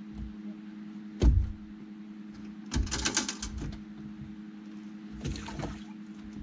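A boat motor hums steadily under rapid clicking and rattling from fishing gear handled at the boat's side. A sharp knock comes about a second in, a longer burst of clicking follows about a second later, and a shorter one comes near the end.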